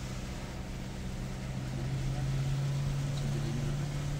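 Car in motion heard from inside the cabin: a steady low engine drone over road noise, growing a little louder about two seconds in.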